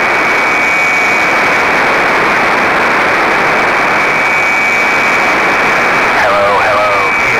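Radio receiver hiss from the ARISSat-1 transponder downlink, with a steady high-pitched whistle of a carrier tone running through it. A faint, garbled voice starts coming through the noise about six seconds in.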